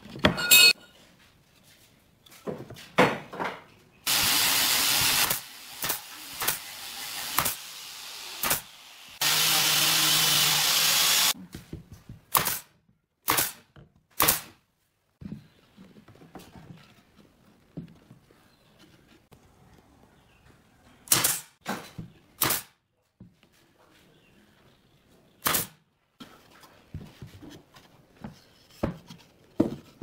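Workbench assembly sounds: a cordless drill runs twice, once for about a second and once for about two seconds. Several sharp, separate clicks and knocks follow, spread out over the rest of the time.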